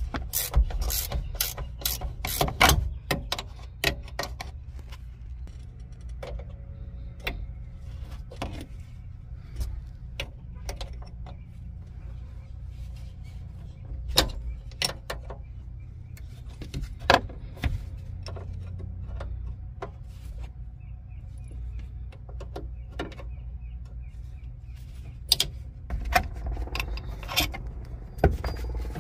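Wrench and metal parts clicking and knocking irregularly while a mini truck's brake master cylinder and its line fittings are unbolted, over a steady low hum.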